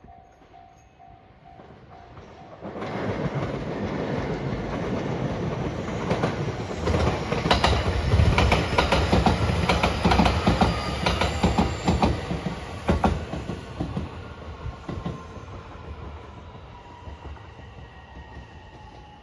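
JR West 227 series electric train passing close by, its wheels clacking over the rail joints. It builds from about three seconds in, is loudest with a run of sharp clacks around the middle, then fades as it draws away.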